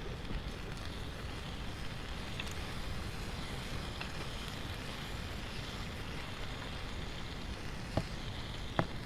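Steady wash of surf on a beach, with a campfire crackling and two sharp pops near the end.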